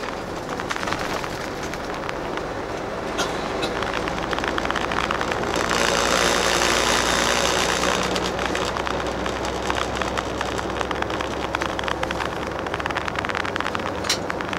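Highway coach running at speed: steady engine hum and tyre and road noise, with a louder rush of noise that swells and fades between about five and eight seconds in.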